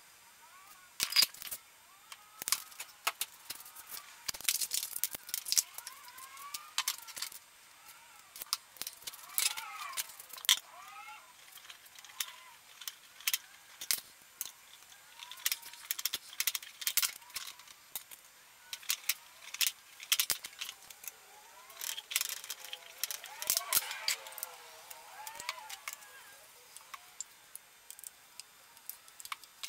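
Stainless steel dog bowls and copper pipe and fittings being handled on a workbench: many short, scattered metallic clinks and knocks, some with a faint ring.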